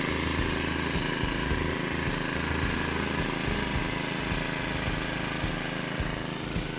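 Small petrol engine on a shallot-watering machine running steadily at working speed, driving its water pump, with the constant hiss of water spraying from the nozzles.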